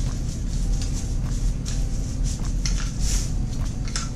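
Paper and cardboard packaging rustling and scuffing several times as a small product box is unwrapped by hand, over a steady low hum.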